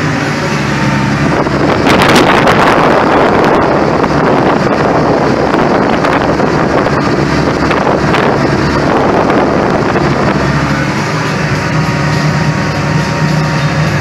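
John Deere 8210 tractor's six-cylinder diesel engine running, heard from inside the cab while it drives over a corn silage pile to pack it. A louder, rougher rush of noise swells about two seconds in and eases off about ten seconds in, leaving the steady engine hum.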